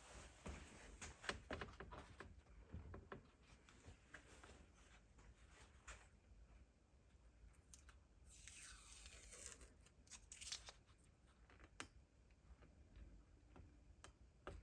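Faint handling sounds from vise assembly work: scattered light clicks and taps, and about eight seconds in a longer rasping sound that slides down in pitch.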